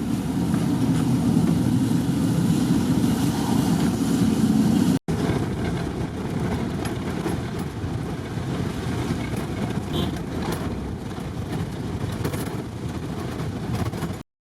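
Minibus running along a rough road, with steady engine and road noise heard from inside the cabin. About five seconds in it cuts off briefly, then resumes a little quieter with light scattered rattles.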